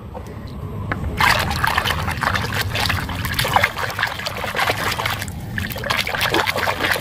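Water splashing and sloshing as a hand swishes and scrubs a toy around in a plastic basin of muddy, soapy water, starting about a second in and going on with a brief lull near the end.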